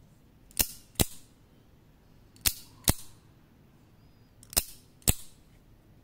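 Mini OTF automatic knife with a zinc-aluminium alloy handle and a detachable number 24 surgical scalpel blade, its slider worked so the blade fires out and snaps back. The result is three pairs of sharp snaps, the two in each pair about half a second apart and the pairs about two seconds apart.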